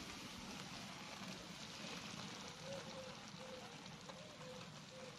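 Faint steady hiss of background ambience, with faint short notes of background music coming in about halfway through.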